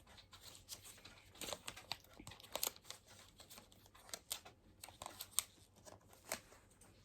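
Faint crinkling and tearing of packaging being handled and opened, an irregular scatter of small crackles and clicks.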